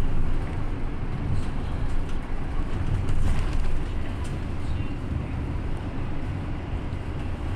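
Steady low rumble of engine and road noise heard from inside a moving bus.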